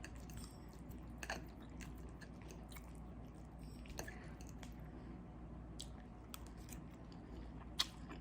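Close-miked chewing of spaghetti in meat sauce: soft wet mouth clicks and smacks scattered through, the sharpest one near the end.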